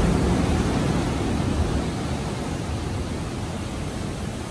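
Heavy ocean surf: large waves breaking and rushing up a sand beach, a steady rush of noise that slowly dies down.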